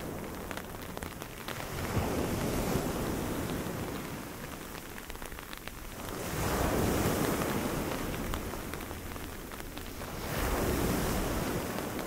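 Storm ambience on an ocean beach: steady rain and wind with surf rolling in, the noise swelling about every four seconds as waves break.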